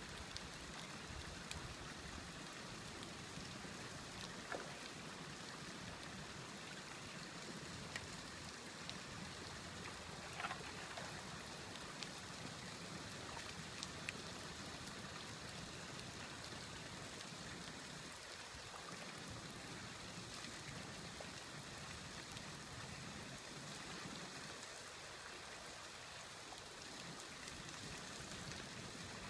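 Creek water carrying broken ice: a faint, steady rush of moving water, with scattered small ticks and clinks as pieces of ice knock together.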